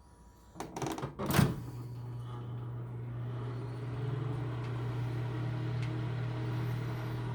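Microwave oven door unlatching with a few clicks about a second in, then the microwave switching on and running with a steady electrical hum while its door is open.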